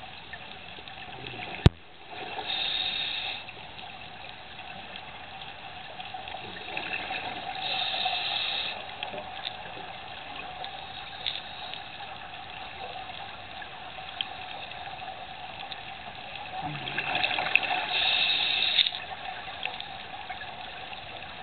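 Scuba diver's regulator breathing heard underwater: three bursts of exhaled bubbles, each a second or two long and several seconds apart, over a steady hum. A sharp click sounds near the start.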